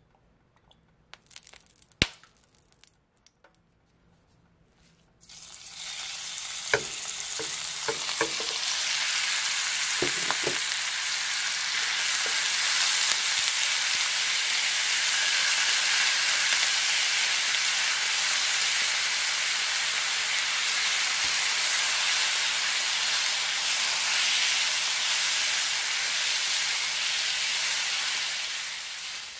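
Raw minced beef frying in olive oil in a hot pan, the sizzle starting suddenly about five seconds in and then running loud and steady as it is stirred and broken up with a spatula, with a few knocks of the spatula early on. Before the meat goes in there are only a few light clicks.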